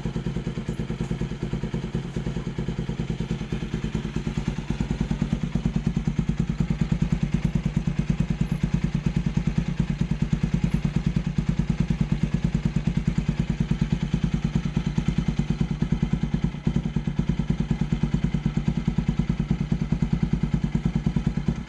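Motorcycle fitted with an aftermarket exhaust pipe idling, a steady even pulsing that gets a little louder about five seconds in.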